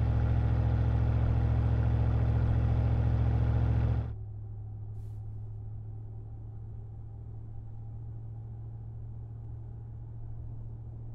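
Ram 1500's 5.7 L Hemi V8 idling with a straight-pipe muffler bypass: a loud, steady exhaust rumble heard from under the truck. About four seconds in it cuts to a much quieter, deep, steady idle hum heard inside the cab.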